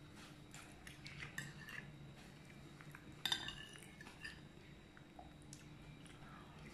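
Metal spoon clinking against a ceramic soup bowl during eating: a few faint, light clinks, the clearest about three seconds in.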